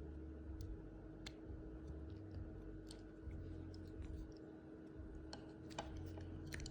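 Faint, scattered metallic clicks of a 5/16-18 hand tap and its tap handle being worked into a stripped nut to re-cut its threads, with a few more clicks near the end.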